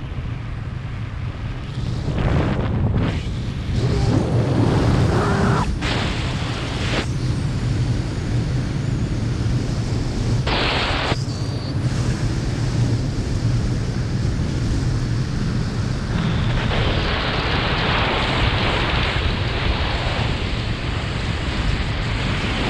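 Wind rushing and buffeting over a skydiver's camera microphone under an open parachute canopy, with a low rumble throughout and several louder gusts of air noise.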